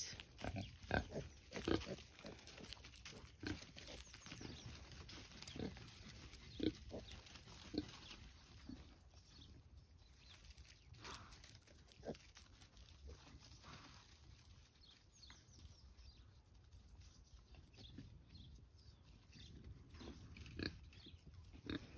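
Kunekune pigs, sows and piglets, grunting quietly in short sounds scattered through.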